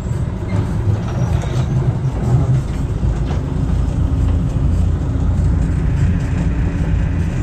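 A moving vehicle's engine and drivetrain giving a steady low rumble, with light knocks and rattles over it.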